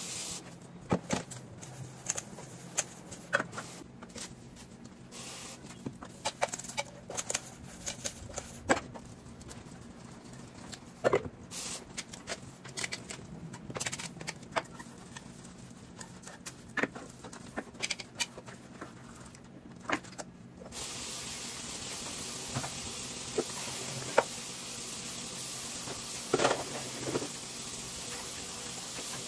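Dishes washed by hand at a kitchen sink: scattered clinks and knocks of plates, cutlery and pans being handled. About two-thirds of the way through, the tap runs steadily, a constant hiss of water with more clinks over it.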